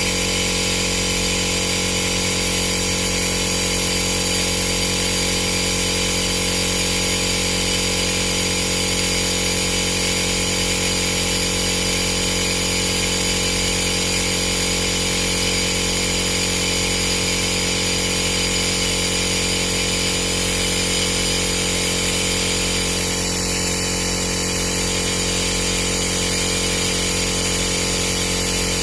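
Steady, unchanging hum of a small motor-driven machine, with several steady tones and no pauses.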